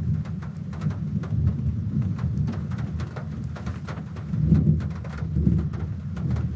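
Rain falling hard on the car's roof, heard from inside the car as a dense patter of many drops. About four and a half seconds in, a low rumble of thunder swells up.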